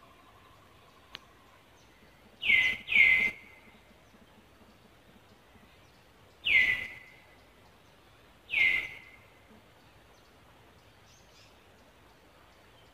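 Four loud, short animal calls, each sliding down in pitch and then holding briefly on a lower note: two in quick succession, then two more spaced a couple of seconds apart.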